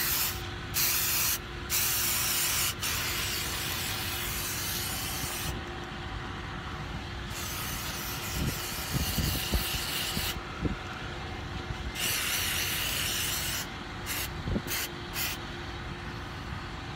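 Aerosol can of temporary blue hair-colour spray hissing in repeated sprays: three short bursts, then long sprays of a few seconds each with brief pauses, and a few short bursts again near the end.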